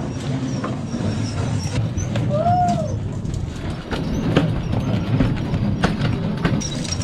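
Knocks and clicks of gear being handled on a fishing boat's deck over a steady low rumble, with one short call that rises and falls about two and a half seconds in.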